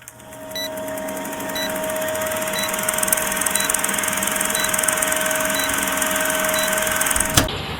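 Sword bicycle rear hub's freehub, 6 pawls with 3-tooth engagement, buzzing as the wheel freewheels: a fast, dense ratchet clicking over a steady hum. The hub has run over 700 km and is freewheeling smoothly.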